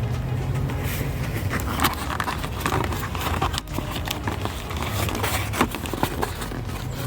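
Hands working the cabin air filter and its plastic housing: scattered clicks and crinkling rustles over a steady low hum.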